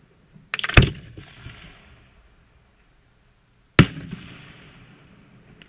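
Aerial firework shells bursting. About half a second in comes a quick run of cracks ending in a loud bang, and near four seconds a single sharp bang. Each trails off in a fading echo.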